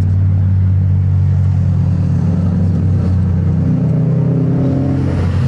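Turbocharged Toyota 2JZ-GE inline-six idling steadily, heard close up from inside the open engine bay; its note shifts slightly around the middle.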